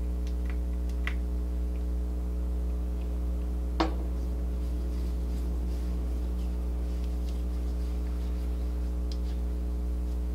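Steady low electrical hum with evenly spaced overtones, with a few faint clicks and one sharper tap about four seconds in.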